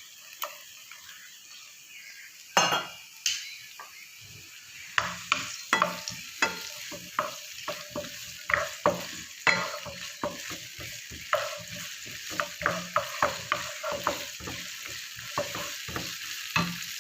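Food frying in hot oil in a pan, with a steady sizzle, while a spatula stirs it and clicks and scrapes against the pan roughly two or three times a second from about five seconds in. About two and a half seconds in there is a short, louder burst of noise.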